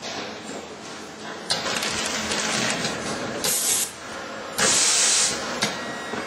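Compacta automatic film-packaging machine running, clattering steadily, with two sharp hisses of compressed air from its pneumatic actuators. The second hiss is louder and lasts under a second, and a sharp click follows it.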